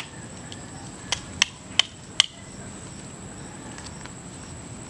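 Four sharp clicks of hard giant African snail shells being handled, coming about a second in and less than half a second apart, over a steady high insect whine.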